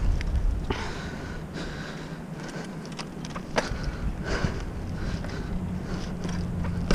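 BMX bike rolling on asphalt: tyre rumble and wind on the microphone. The wind eases about a second in, and a few sharp clicks from the bike cut through.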